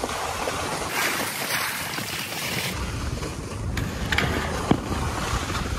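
Skis hissing over snow with wind rushing on the microphone, the hiss louder and sharper for a second or two early on, and a few light knocks in the second half.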